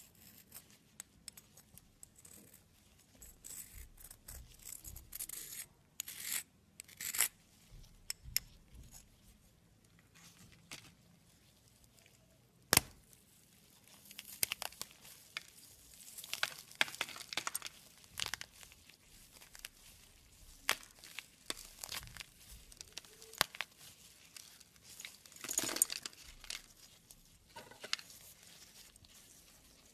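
Dry, chalky soap chunks crushed and broken apart between gloved fingers: crisp, crumbly crunching in irregular bursts, with one sharp snap about thirteen seconds in.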